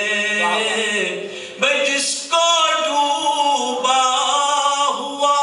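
A man singing unaccompanied Urdu devotional verse, holding long, level notes and pausing briefly between phrases.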